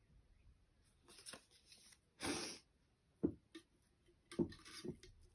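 Paper slips being handled: a short paper rustle about two seconds in as a folded slip is opened. Then a hand reaching into a glass jar of paper slips, with a few light knocks against the glass.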